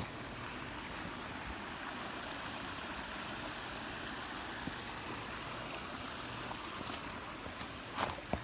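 Creek water running steadily, an even rushing sound. A brief knock near the end.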